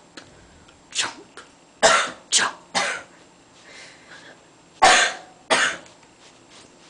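A person coughing repeatedly: a single cough about a second in, three quick coughs around two seconds in, and two more about five seconds in.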